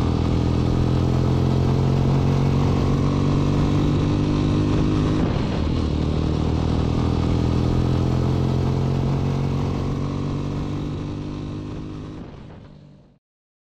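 Motorcycle engine running steadily at cruising speed, with a brief wobble in its note about five seconds in, then fading out near the end.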